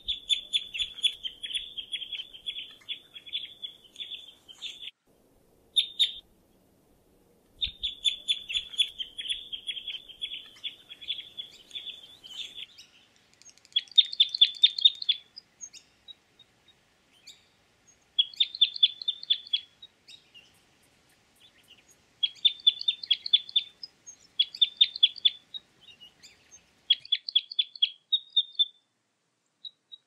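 Birds chirping in rapid trills of short, high notes, coming in bursts of one to five seconds with short pauses between them.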